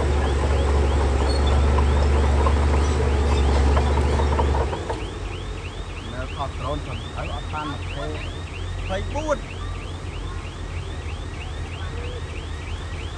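Heavy construction machine's diesel engine running loud and low, then falling back to a quieter, lower run about five seconds in. A high repeating chirp, about four a second, sounds throughout.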